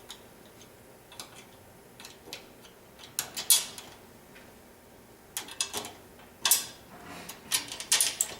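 Scattered clicks and clinks of parts being handled as the box's mounting rail and its spacer washers are set in place on the snowmobile, in several short clusters.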